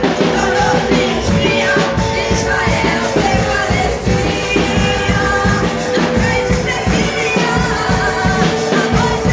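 Live gospel worship band playing a song with a steady beat, with singing over a held keyboard-like tone.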